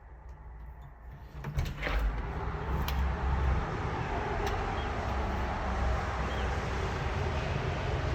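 Steady low rumble and noise of a moving vehicle, building up over the first two seconds, with a few sharp clicks early on.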